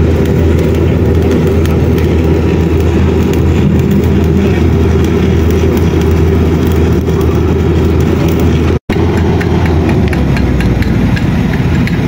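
Machinery engine running steadily at constant speed, a loud, even low hum. It cuts out for an instant about two-thirds of the way through.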